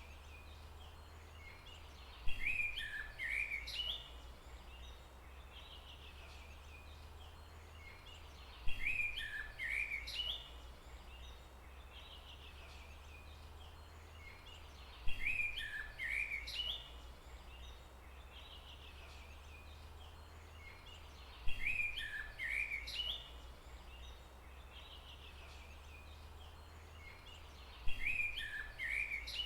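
A songbird singing a short chirpy phrase, the same phrase repeating five times about every six and a half seconds, over a steady low rumble.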